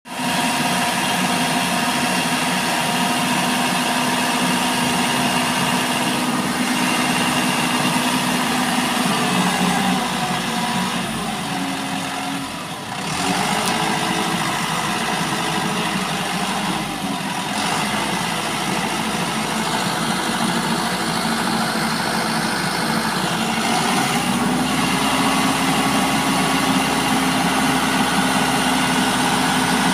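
Mitsubishi Canter crane truck's diesel engine running steadily to power the hydraulic crane, its pitch shifting a few times as the crane is worked and running higher for the last few seconds.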